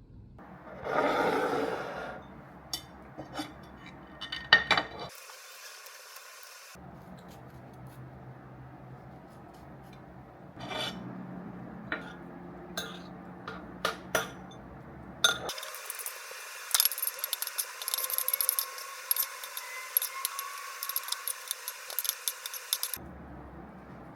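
Kitchen handling sounds: a spoon and glassware clinking, rubbing and scraping. There is a brief rustling noise about a second in, then scattered clinks, and near the end several seconds of rapid scraping and clinking like stirring in a glass.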